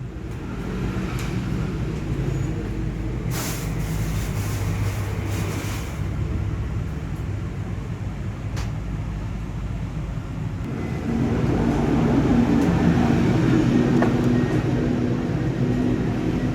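A vehicle engine running steadily as a low rumble, growing louder about eleven seconds in.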